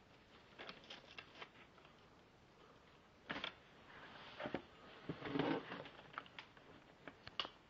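Scattered light clicks, knocks and rustling of household clutter being disturbed, loudest a little past the middle, with a couple of sharp clicks near the end.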